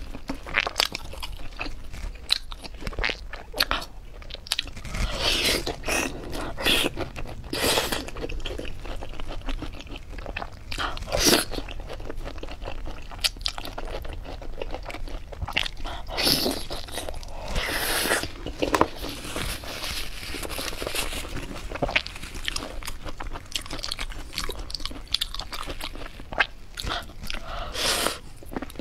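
Close-miked eating: crunchy bites and chewing of spicy skewered food, green chili peppers among it. The crunches are short and irregular, the loudest a little before the middle.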